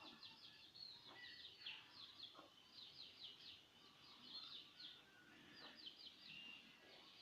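Faint birds chirping in the background, a steady run of short, quick, falling high notes over near silence.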